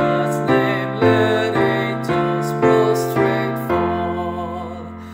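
Piano playing a hymn in block chords, about two chords a second, ending on a long held chord that fades away.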